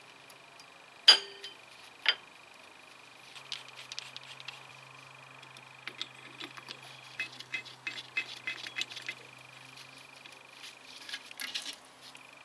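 Metal hand tools and brake parts clinking and knocking during front brake disc and pad work. One sharp loud clink comes about a second in and another a second later, followed by scattered lighter clinks.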